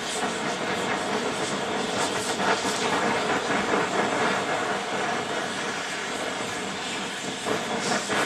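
Oxy-acetylene torch fitted with a cutting head, its flame burning with a steady rushing hiss while heating a steel part to brazing temperature.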